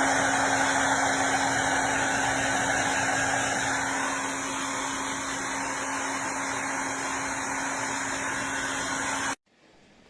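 A small motor runs with a steady, loud whooshing noise and a low hum under it, then is switched off abruptly about nine seconds in.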